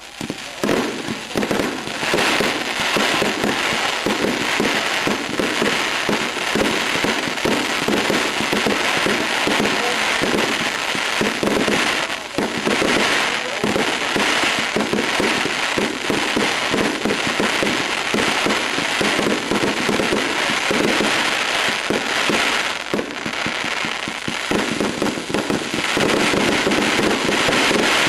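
Wolff 'The Jackhammer' firework going off in a long, rapid, unbroken string of sharp bangs, starting about half a second in, with brief lulls twice before it picks up again.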